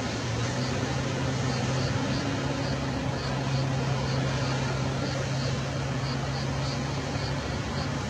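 A boat's engine running at a steady pitch over the broad rush of the tidal bore's breaking wave.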